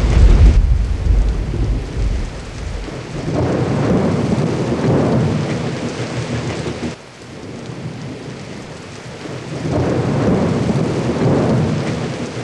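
Thunderstorm: rolling thunder over steady rain, the rumble swelling up twice and dying back.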